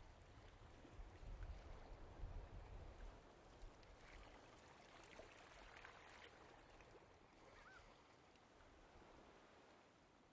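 Near silence: a faint hiss with a low rumble over the first few seconds, one brief faint chirp about three-quarters through, and everything fading lower toward the end.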